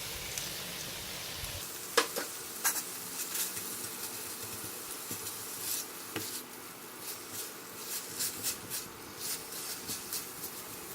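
Large prawns sizzling in oil and fried chilli–shallot paste as they are stirred in the pan, with scattered clacks and scrapes of the utensil against the pan, the sharpest about two seconds in and coming quicker in the second half.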